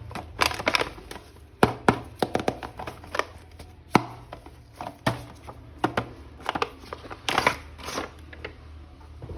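Irregular hard plastic clicks and taps with a few short crinkles as a toy action figure is unpacked and handled, over a steady low hum.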